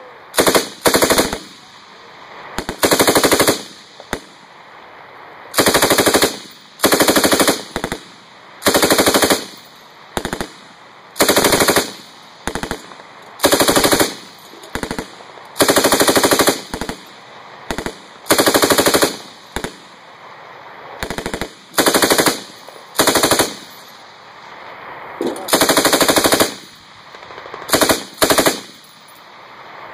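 M249 SAW light machine gun, 5.56 mm, firing short bursts of automatic fire: about two dozen bursts, each well under a second long, with pauses of a second or two between them.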